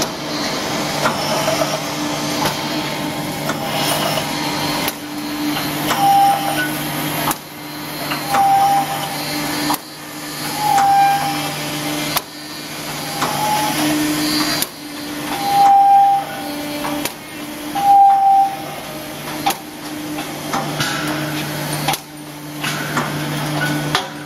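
High-speed welded wire mesh machine running, welding 1.5–3 mm wire into mesh and winding it onto a roll: a steady electrical hum under a repeated clacking of the welding stroke, with a short squeak every couple of seconds.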